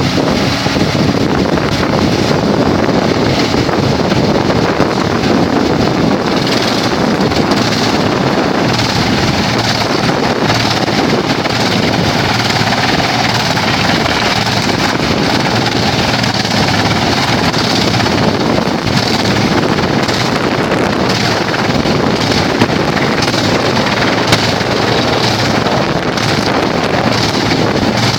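Vantec PTF600x300/450mm forestry wood chipper running, a loud, steady, dense mechanical noise with small flickers throughout.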